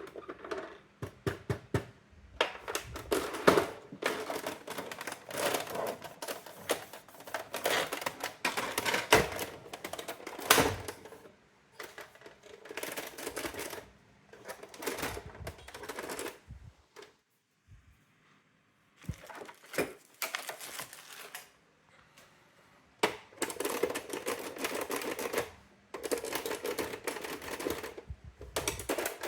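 Brother AX-425 electronic daisy-wheel typewriter typing: rapid runs of sharp mechanical clicks from the print mechanism, broken by short pauses, with a quiet spell a little past halfway.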